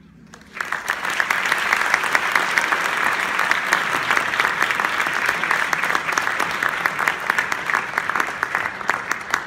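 Audience applause: after a brief hush, dense clapping breaks out about half a second in and keeps going evenly.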